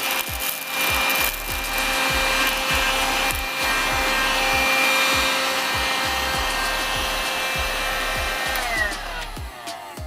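Kitfort KT-529-2 cordless handheld vacuum running with its brush nozzle, a steady motor whine over rushing air as it sucks up loose buckwheat grains. Near the end it is switched off and the whine falls in pitch as the motor spins down.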